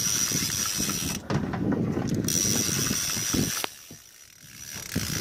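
Fishing reel being cranked: a fast run of ratcheting mechanical clicks as line is wound in on a hooked fish, breaking off about three and a half seconds in and starting again near the end.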